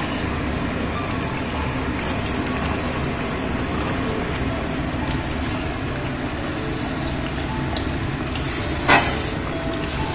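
A flat metal spatula stirring and scraping a thick spinach paste in a metal kadai as it is fried down, with short scrapes and knocks against the pan, the loudest about nine seconds in. A steady low rumble runs underneath.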